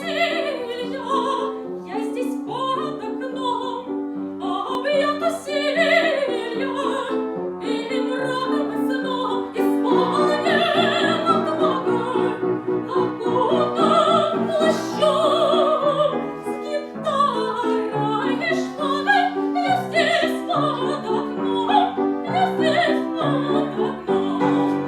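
Classical-style singing with vibrato, accompanied by piano.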